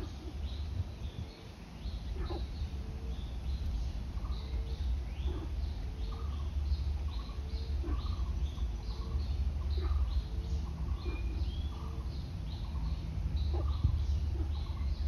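Birds calling repeatedly: many short high chirps overlapping with a lower, evenly repeated short note, over a steady low rumble.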